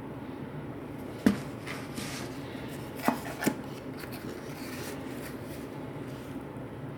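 Headphone box packaging being handled: soft rubbing and sliding, with a sharp tap about a second in and two quick knocks about three seconds in.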